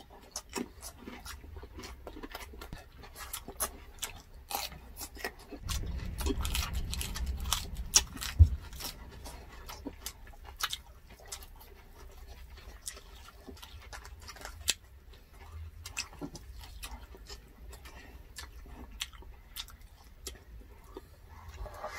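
Chewing, crunching and wet mouth sounds of people eating grilled pork belly, roast chicken and raw cucumber by hand, with many short sharp clicks. A low rumble comes in about six seconds in and ends in a sharp knock at about eight and a half seconds.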